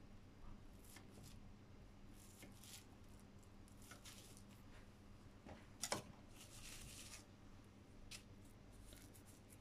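Near silence with faint, scattered rustling of plastic wrap as a log of cookie dough is handled and sliced, over a low steady hum. One sharp click about six seconds in.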